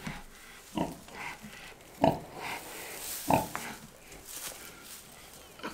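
Pig grunting in short, sudden grunts about every second and a quarter, with a rustle of straw around the middle.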